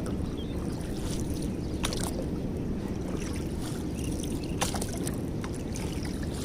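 Steady low rumble of water and wind around a small boat moving on the water, with a few faint knocks.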